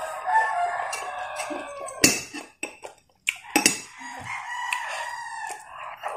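A rooster crowing twice, each crow about two seconds long, mixed with sharp clicks and smacks of eating close to the microphone. The loudest click comes about two seconds in, between the crows.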